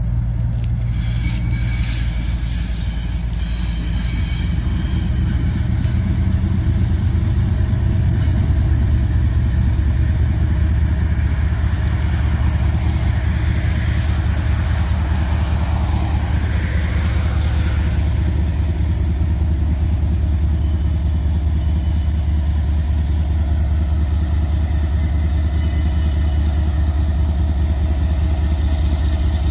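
CSX diesel-electric freight locomotives working as they approach, with a steady low engine rumble. Partway through, a pickup truck passes close by, and its sound rises and falls over a few seconds.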